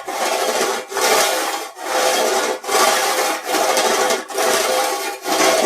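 Rippled metal plates scrubbed against each other in a steady back-and-forth, a scraping rasp in about seven strokes of just under a second each, separated by brief gaps.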